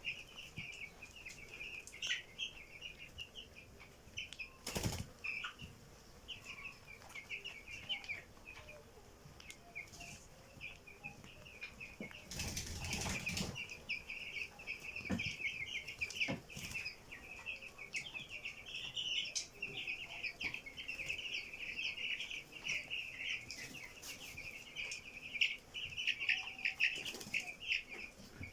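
Chickens chirping continuously in a dense chatter of small high calls. There are a few short sharp sounds, and a louder burst about twelve seconds in that is probably wings flapping.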